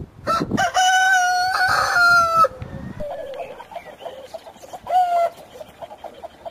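A rooster crowing: one long, loud, held crow lasting about two seconds, then a shorter call about five seconds in, with softer chicken clucking in between.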